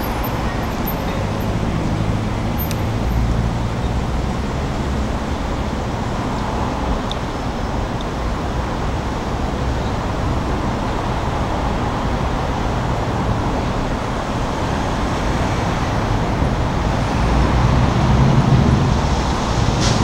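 Steady city road traffic: passing vehicles with a low engine rumble that grows louder near the end.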